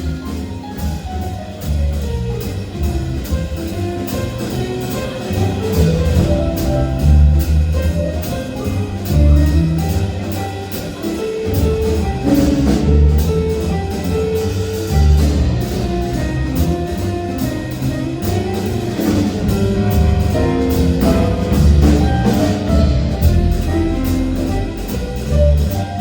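A band playing an instrumental passage of a song, with bass, drums and melodic instruments and no singing.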